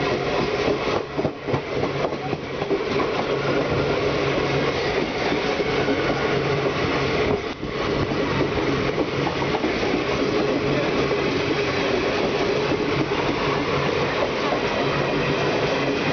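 Two Indian Railways passenger trains running side by side on adjacent tracks, heard from an open coach door: a steady roar of wheels on rails with a steady low hum underneath. The roar dips briefly about a second and a half in and again about halfway through.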